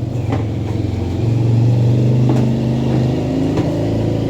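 A motor vehicle engine running, a steady low drone that gets louder about a second in and eases off near the end.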